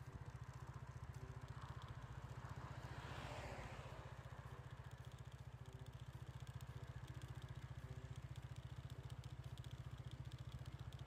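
Motorcycle engine idling with a steady, fast low pulse. A rush of noise swells and fades about three seconds in.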